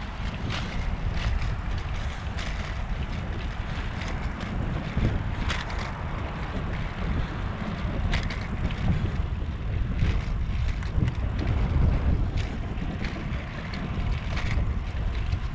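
Wind rumbling on the microphone and wheels rolling on a concrete path while riding, with scattered sharp clicks and knocks.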